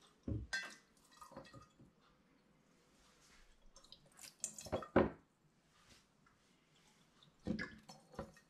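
Wine running through a plastic siphon tube into glass champagne bottles in a sink, with dripping and trickling and short clusters of clinks and knocks as the tube end is moved between the bottle necks; the loudest group comes about five seconds in.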